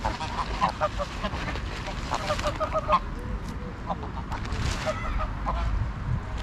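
Greylag geese giving short, repeated honking calls in quick clusters, busiest in the first three seconds and again about five seconds in.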